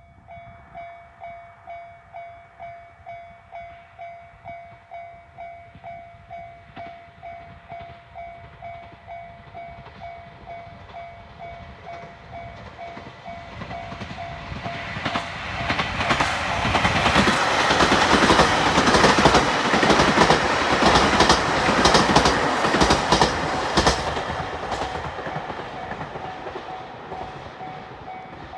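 Japanese railway level crossing alarm sounding its repeated clang about twice a second. About halfway through a train passes loudly, its wheels clacking over the rail joints, then fades while the alarm keeps ringing.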